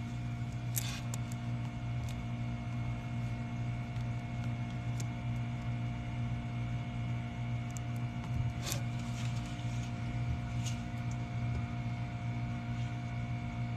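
Mini fridge running with a steady low electrical hum, heard from inside the fridge compartment, with a few faint clicks.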